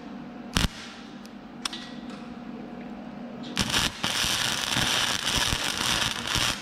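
Flux-cored wire welder arc crackling and spitting spatter as it bridges a wide gap in steel. It strikes up about three and a half seconds in, breaks briefly, then runs on loud and continuous. Before the arc there is a steady low hum and a couple of sharp clicks.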